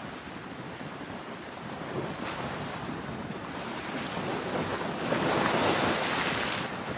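Steady rushing outdoor noise, growing louder about five seconds in.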